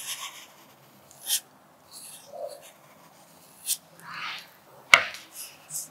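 Graphite pencil scratching on paper as it writes cursive letters: a series of short, separate strokes, with a sharp tick about five seconds in that is the loudest sound.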